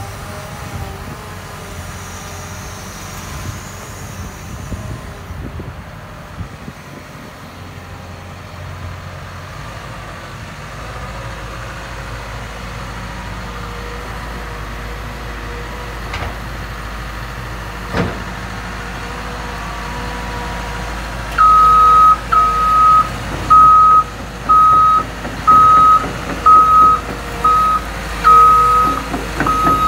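Caterpillar 316E L hydraulic excavator's diesel engine running steadily, with one sharp knock partway through. About two-thirds of the way in its travel alarm starts beeping, a loud high single-tone beep repeated at uneven intervals, the sign that the tracks are moving.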